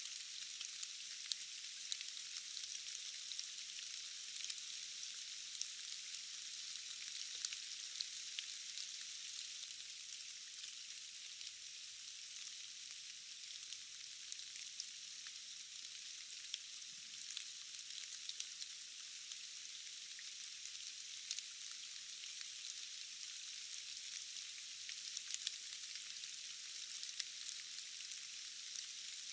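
Steady rain falling in a forest: an even, high hiss dotted with many small ticks of individual drops.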